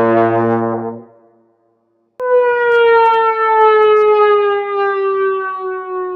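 Cartoon 'fail' trombone sound effects: a held brass note fades out about a second in, then after a short silence a new trombone note starts abruptly and slides slowly and steadily downward in pitch, a comic sad-trombone slide.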